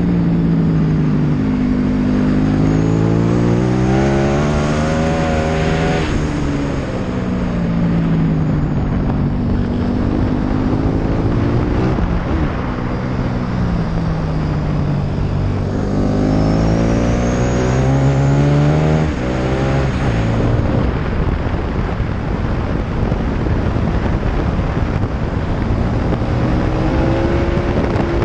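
Sport motorcycle engine at racing speed, its pitch climbing hard under acceleration and dropping sharply several times for shifts and braking into corners, with heavy wind rush on the microphone.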